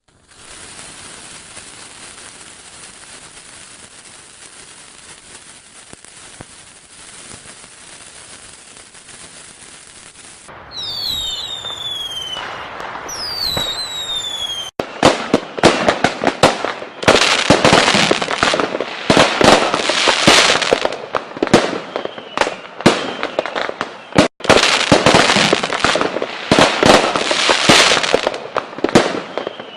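Fireworks: after a steady low hiss, several whistling rockets fall in pitch, then from about halfway on a dense run of loud bangs and crackling bursts, briefly cut off twice.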